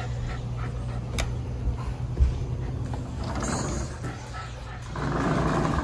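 A dog panting, starting near the end, over a low steady hum, with a single sharp click about a second in.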